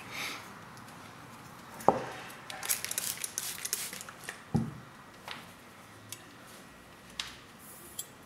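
A kitchen knife and sharpening gear being handled at a whetstone: a sharp knock about two seconds in and another near the middle, with a quick run of scratchy clinks between them and a few lighter clicks after.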